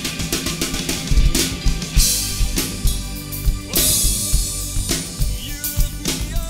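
Drum kit played along to a rock backing track: a steady kick and snare groove, with cymbal crashes about two seconds in and again near four seconds.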